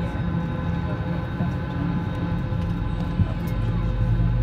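Steady cabin noise inside an Airbus A320 as it moves on the apron: a low hum under several steady whining tones, with a deeper hum joining about three and a half seconds in.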